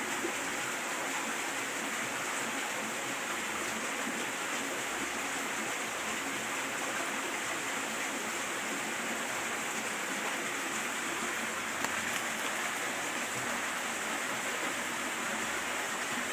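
Steady rush of flowing stream water, an even, unbroken hiss.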